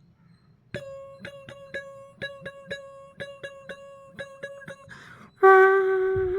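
Mouth mimicry of Tamil funeral music: a sekandi gong struck rapidly, about four ringing strokes a second, then about five seconds in a loud steady conch blast takes over.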